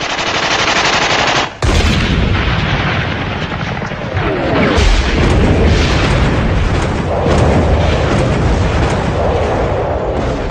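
Battle sound: rapid automatic weapon fire, then from about two seconds in a continuous din of shooting and blasts over a heavy low rumble.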